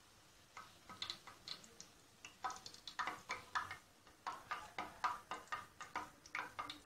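Besan bara frying in hot oil in a pan, with a metal slotted spatula lifting them out: sharp irregular clicks and pops, several a second, starting about half a second in.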